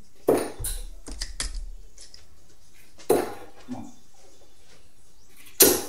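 Steel-tipped darts being pulled out of a bristle dartboard and clinking together in the hand: three sharp clattery clicks, a few seconds apart, the last the loudest, with lighter clicks between.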